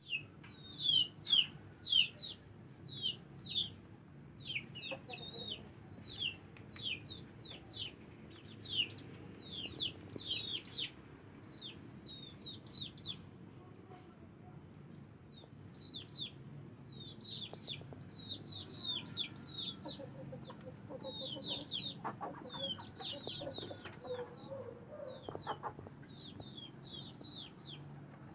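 Kampung chickens calling: many short, high, falling peeps in quick runs, louder in the first ten seconds, with a few lower clucks past the middle.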